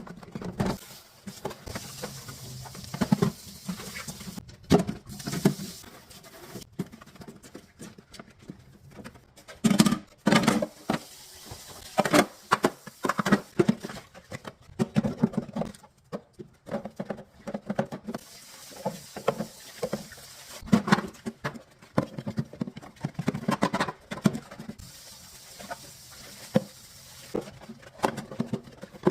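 Irregular knocks, taps and rubbing from cleaning a refrigerator's interior by hand, with plastic and glass parts being handled and wiped.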